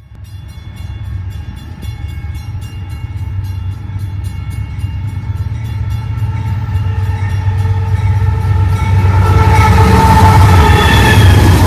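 Canadian Pacific diesel freight locomotives approaching and passing close, the engines' low rumble growing louder, with the air horn sounding steadily and loudest as the locomotives go by.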